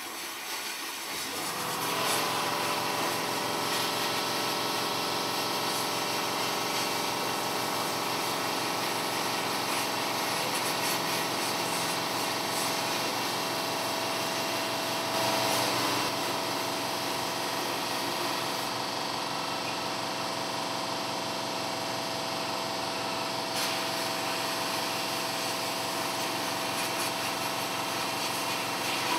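Glass-bead sandblasting cabinet blasting a metal casting: a steady loud hiss of compressed air and beads that starts about a second and a half in, over the steady hum of a shop vac drawing air from the cabinet.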